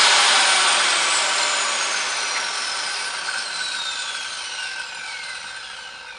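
Circular saw without a blade brake, its blade coasting down after the motor is switched off: a high whine falling steadily in pitch and fading. The long spin-down marks the missing electric brake.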